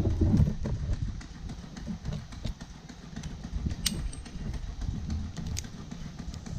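A tree climber moving about in the tree: irregular knocks and rubbing of gear and boots against the trunk over a low rumbling handling noise, with a sharp metallic click about four seconds in and another nearer the end.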